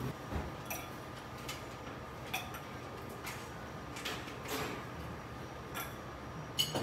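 Indoor room ambience with a steady low hum, broken by scattered light clicks and clinks about once a second. The loudest, near the end, is a clink that rings briefly.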